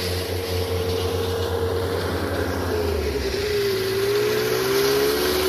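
An engine or motor running steadily with a droning hum, its pitch dipping and settling slightly lower about three seconds in.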